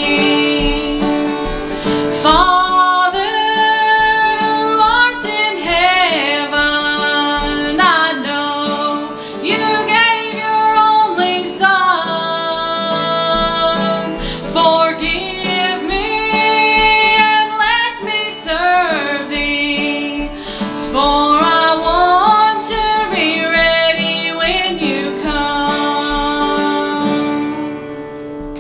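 A woman singing with acoustic guitar accompaniment. Her voice carries the melody in long, gliding notes over the strummed chords, and the music fades away near the end.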